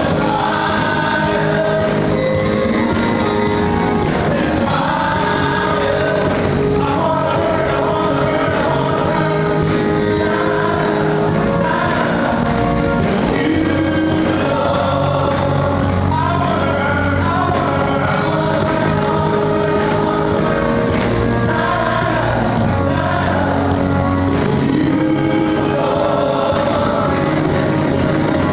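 Live gospel praise-and-worship music: several singers led over a church band with drums, playing continuously with no break.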